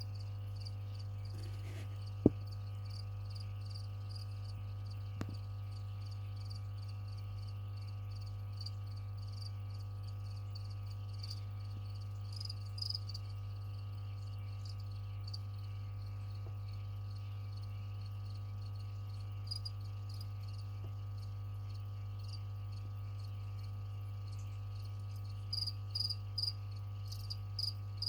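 Feeder crickets chirping in short repeated pulses, louder in bursts near the middle and toward the end, over a steady low hum. A single sharp click about two seconds in.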